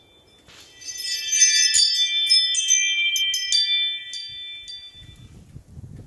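Wind chimes ringing: a quick run of struck notes about a second in, then single strikes every half second or so, all ringing on together and fading out by about five seconds. A low rumble comes in near the end.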